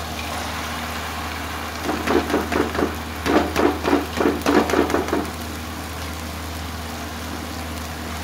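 Soaked split urad lentils (daal mash) tipped from a plastic colander into a wok of masala: a quick run of knocks and patters, about four a second, lasting about three seconds in the middle.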